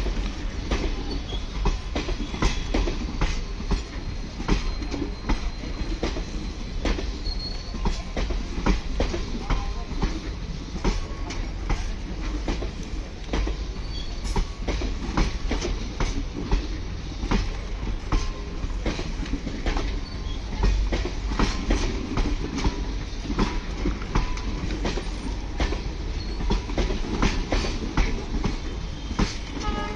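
Train running on the rails: a steady low rumble with continual irregular clicks and clatter of wheels over rail joints.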